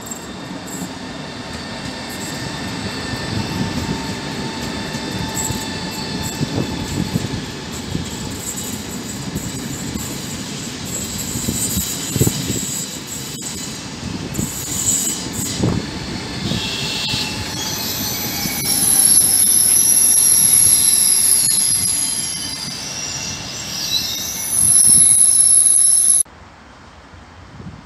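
Italo EVO (ETR 675) high-speed electric train running slowly through the station with a steady rumble from its wheels on the track. A high, steady squeal rises over it from about 18 seconds in and cuts off suddenly just before the end.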